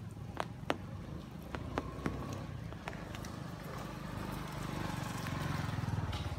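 Wind rumbling on the microphone while the camera is carried outdoors, growing stronger in the second half, with a few sharp ticks in the first three seconds.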